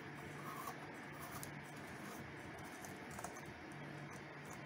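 A light bulb being screwed into a floor lamp's socket: faint scratching and a few light clicks as the bulb turns.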